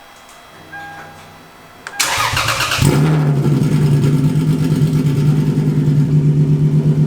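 A few short beeps, then a Lexus IS300's 2JZ-GE inline-six cranks at about two seconds and catches a moment later. It settles into a loud, steady idle through freshly fitted aftermarket headers and mid-pipe.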